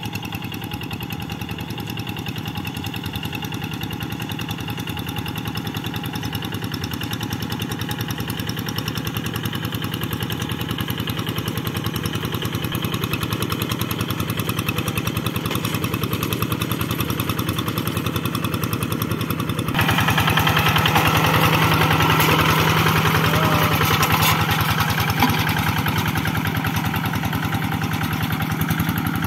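Kubota diesel engine of a two-wheel walking tractor running steadily under load while plowing a flooded rice paddy, with a fast, even chugging beat. It turns louder and harsher about two-thirds of the way through.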